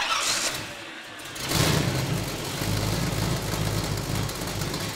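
AMC AMX rally car's carbureted engine running. It gets louder about a second and a half in, then runs on steadily.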